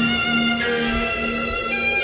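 Bowed string music: sustained violin notes held over a low pulsing tone, the notes changing pitch twice.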